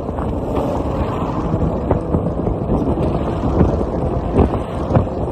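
Car tyres running over a steel grid bridge deck, a steady rumbling road noise with small crackles, mixed with wind buffeting the microphone.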